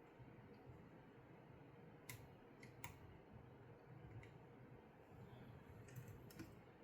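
Faint, sharp clicks of plastic LEGO pieces being handled and pressed together, about half a dozen scattered over low room hiss.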